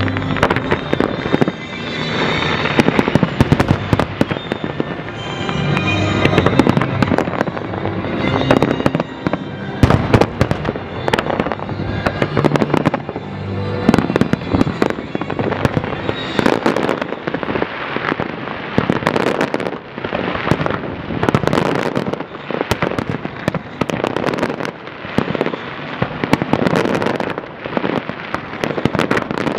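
Dense barrage of aerial firework shells bursting one after another, with crackling between the bangs. Show music plays under the explosions for about the first half, after which the bangs and crackle carry on alone.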